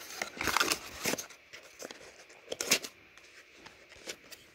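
Thin cardboard packaging rustling and scraping in a few short bursts as a perfume bottle is slid out of its folded card insert. The loudest scrape comes about two and a half seconds in.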